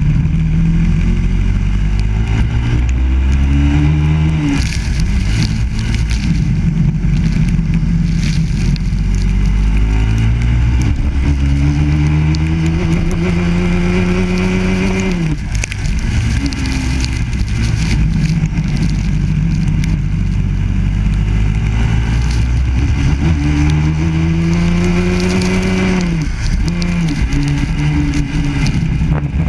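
Onboard sound of a Biland SA250 kart's four-stroke engine racing on a wet track. The engine pitch climbs steadily under acceleration and drops suddenly when the throttle comes off, several times, with the longest pulls in the middle and near the end. A steady hiss sits under the engine.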